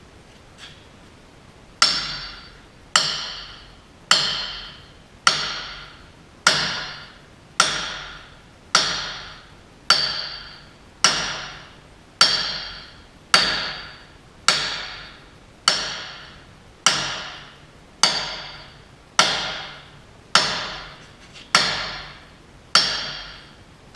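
Hammer beating on a seized hydraulic cylinder part, starting about two seconds in: about twenty evenly spaced blows, roughly one a second, each ringing and dying away. The part is stuck fast and not moving, even after heating.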